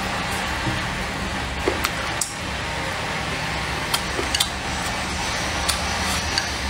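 Chopsticks clicking against a bowl a handful of times, single sharp ticks scattered through, over a steady hiss and low hum.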